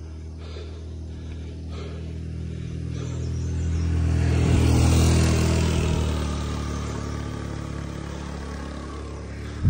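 Two motorbikes come up from behind and ride past, their engines swelling to their loudest about halfway through and then fading as they pull away. A sharp click comes right at the end.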